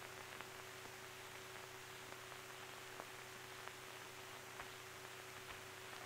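Faint steady hiss and low hum of an old film soundtrack, with a few soft scattered ticks.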